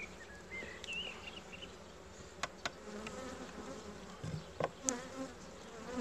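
Buckfast honeybees buzzing steadily around an open hive. Several sharp clicks and knocks come from the frames being handled, two about two and a half seconds in and two more near five seconds.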